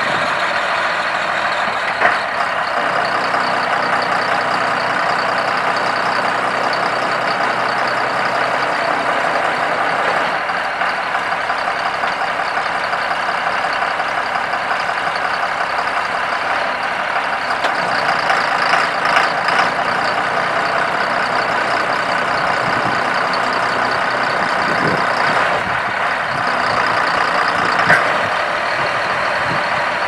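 John Deere 4555 tractor's 7.6-litre six-cylinder diesel engine running steadily, with a few brief sharper noises over it.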